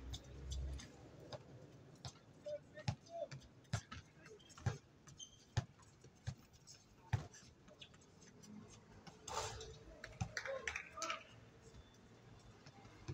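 A basketball bouncing on a hard outdoor court, roughly once a second for a stretch, among scattered thuds and sharp knocks from play. A cluster of short high squeaks comes about nine to eleven seconds in.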